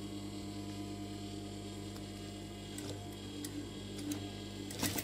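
Steady electric hum of a sewing machine's motor left running between stitching, with a few faint clicks and a sharper clatter near the end.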